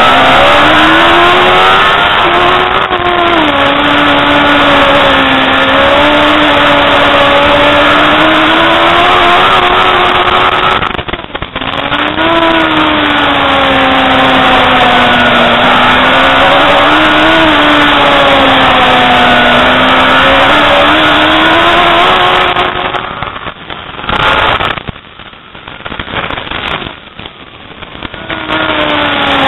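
Racing superbike engine heard onboard at high revs, its pitch rising and falling through the gears and corners. It dips briefly about 11 seconds in, and for several seconds near the end it falls much quieter and uneven before picking up again.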